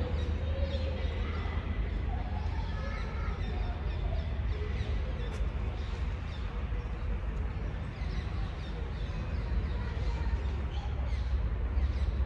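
Outdoor ambience: a steady low rumble, with faint bird calls, crow-like caws among them, in the first few seconds.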